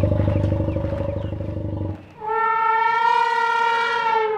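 An elephant's low, pulsing rumble for about two seconds. After a brief pause comes one long, steady trumpet call.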